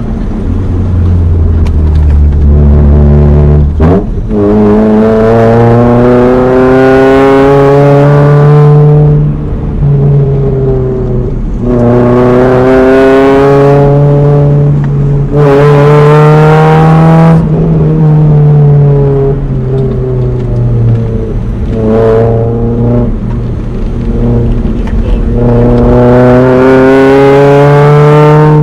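Honda H23 four-cylinder engine in a swapped Prelude pulling hard through the gears. The revs climb steadily several times and drop back at each shift or lift-off. A loud rushing noise joins one pull about midway.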